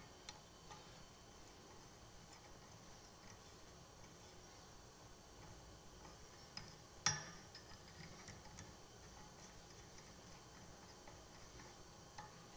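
Near silence with a few faint metal clicks and one sharper clink about seven seconds in, from a small metal hand tool and the loosened parts of an axe grinding jig's top bar as it is adjusted and turned round on a stopped belt grinder.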